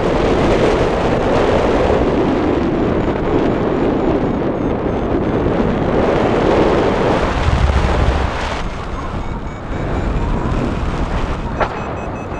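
Airflow rushing hard over the camera microphone on a flying paraglider, swelling and easing in waves, strongest for the first eight seconds and then dropping back.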